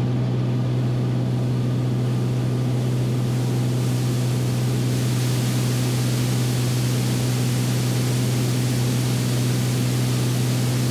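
Beechcraft Bonanza's piston engine and propeller droning steadily in a descent at about 2490 rpm, heard inside the cabin as a constant low hum under a hiss of airflow. The hiss brightens a little about four seconds in.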